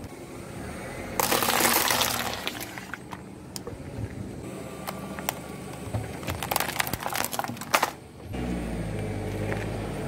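A loud dense crunching noise about a second in, then a run of sharp plastic cracks and clicks as a car tyre presses down on a computer keyboard. A low steady engine rumble comes in near the end.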